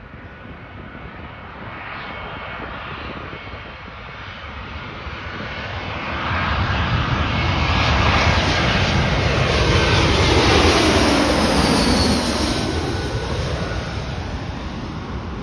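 Twin-engine jet airliner on final approach flying low overhead. The engine noise builds over several seconds and is loudest for a few seconds in the middle. A whine slides down in pitch as the plane passes, then the sound fades as it moves away.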